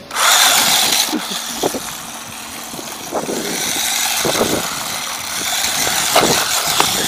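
Small brushed electric motor of a WLToys 18401 1:18 RC car whining as it drives, its plastic tyres churning over icy snow with little grip. The sound starts suddenly, drops a little about two seconds in, then builds again.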